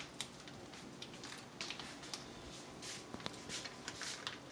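Quiet, scattered soft rustles, squishes and light clicks of hands handling raw meat and a cream cheese filling.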